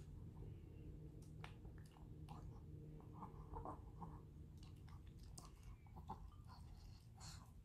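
A small dog eating diced raw vegetables from a bowl: faint, irregular chewing and crunching, over a low steady hum.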